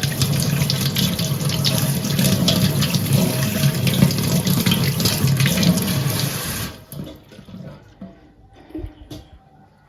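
Water running from a tap into a sink, shut off sharply about two-thirds of the way through, followed by a few faint knocks.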